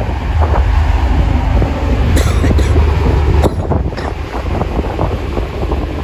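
Strong wind buffeting the microphone in gusts over a heavy low rumble, with brief sharp rushes about two and three and a half seconds in.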